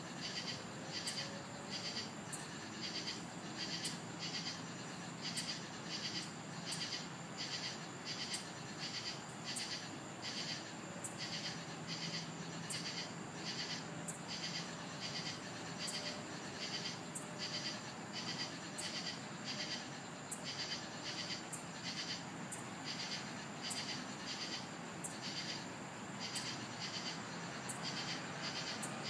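Night insects chirping in a steady rhythm, about two pulses a second, over a faint low background hum.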